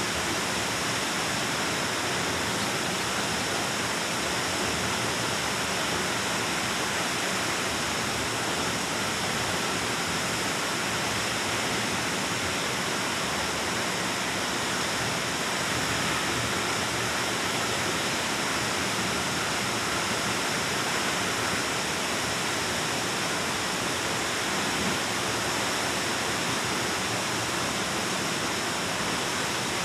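Waterfall pouring into a cave, a steady rush of falling water echoing off the rock.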